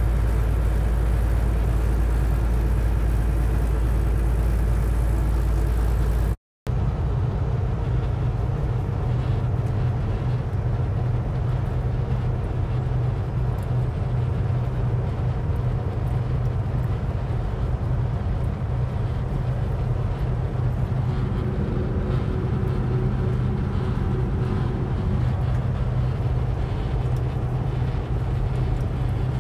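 Steady engine and road noise heard inside a truck cab cruising at highway speed, with a strong low hum. The sound drops out completely for a moment about six seconds in.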